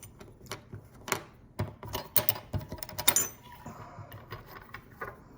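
Irregular small metallic clicks and taps as a key and a partly disassembled PacLock 90A-Pro padlock are handled, with a cluster of sharper clicks about two to three seconds in.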